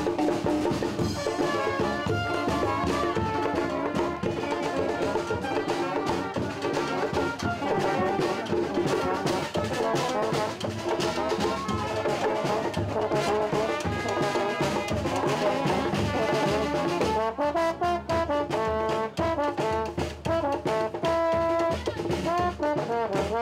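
Brass band music: trumpets and trombones playing a tune together.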